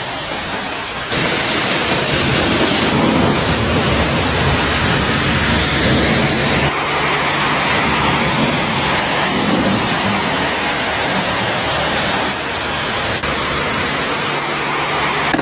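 Heavy storm rain and wind: a loud, steady rushing that gets louder about a second in, with an uneven low rumble underneath.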